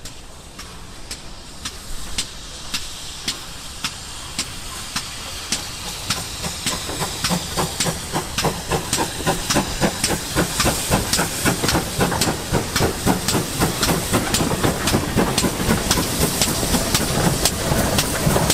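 Ex-GWR 2800-class 2-8-0 two-cylinder steam locomotive working a train toward and past, with steam hiss and a steady run of sharp beats growing steadily louder as it draws near.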